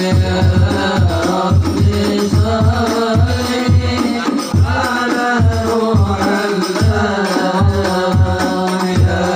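Habsyi (sholawat) ensemble: men singing a devotional chant over frame drums (rebana) and a deep bass drum that keeps a steady beat, played through a PA sound system.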